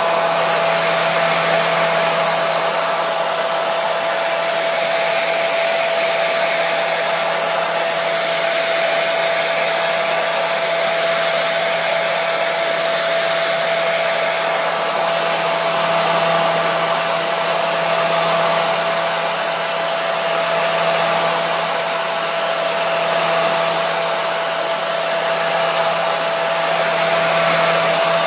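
Handheld hair dryer running steadily: a loud, even blowing whoosh with a constant motor whine.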